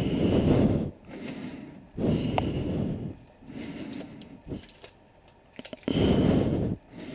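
A man breathing heavily close to the microphone: a noisy breath roughly every two seconds, with a few faint clicks between them.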